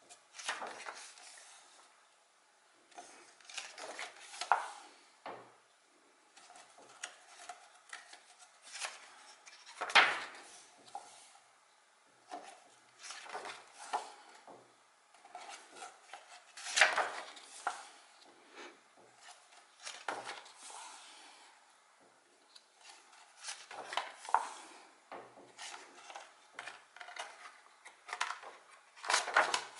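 Pages of a paperback book being turned one after another, the paper swishing and rubbing under the hands, with a few sharper flips.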